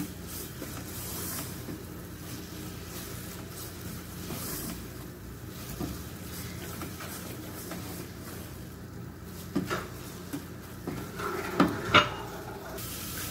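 Wooden spatula stirring and scraping grated carrots and sugar in a steel pot, with soft scrapes and clicks. Near the end come a few sharper knocks of the spatula on the pot, the loudest about twelve seconds in.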